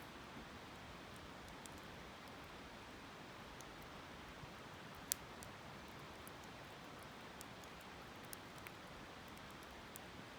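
Faint wood campfire crackling, with scattered small pops and one sharper pop about five seconds in, over the steady rush of a river.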